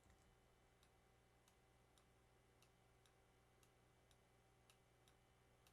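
Near silence with faint computer mouse clicks, about two a second.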